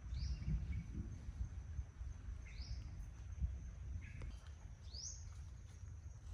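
A forest bird calling: three short rising whistled notes about two and a half seconds apart, with a shorter lower note between the last two, over a steady low background rumble.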